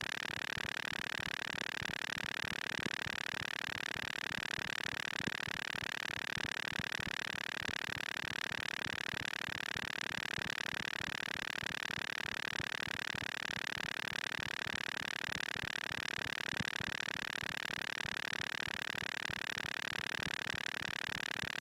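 Moog Mother-32 analog synthesizer, modulated by a Comdyna GP-6 analog computer solving the Lorenz chaos equations, putting out a steady, bright, dense crackling buzz of very rapid irregular clicks.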